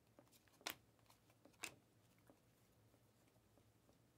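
Panini Mosaic basketball trading cards being slid off a hand-held stack one at a time, giving a few soft, short flicks, the two loudest about a second apart, over near silence.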